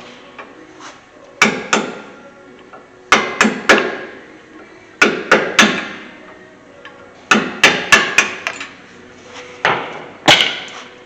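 Hammer blows on metal in quick bursts of two to five strikes, a second or two apart: a screwdriver being hammered to knock the old pad hardware clips off a brake caliper bracket.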